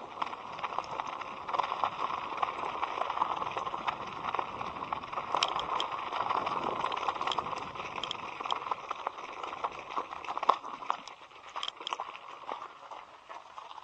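Electric scooter ride heard from a helmet-mounted camera: a steady rush of wind and tyre noise, with many small clicks and knocks scattered through it.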